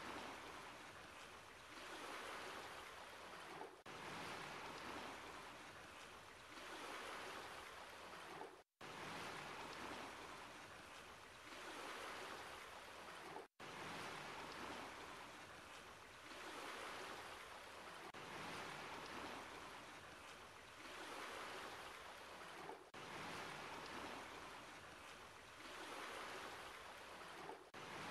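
Faint rushing, water-like noise with no tune or voice, swelling and fading about every two seconds, with two brief cut-outs, near nine and thirteen and a half seconds in.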